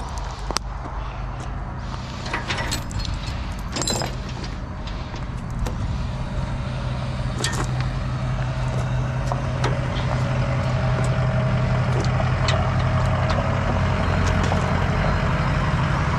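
Ford F-250 Super Duty pickup's engine running steadily, growing gradually louder as the truck draws near, with a few light clicks in the first half.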